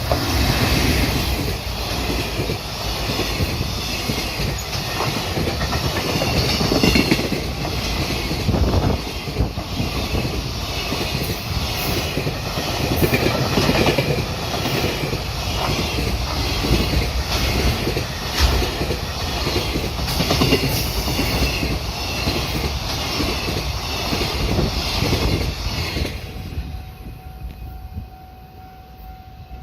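A train passing close by at a level crossing, its wheels clacking over the rail joints in a long run of clicks and rumble. About 26 seconds in, the train noise drops away, leaving the steady tone of the crossing's warning signal.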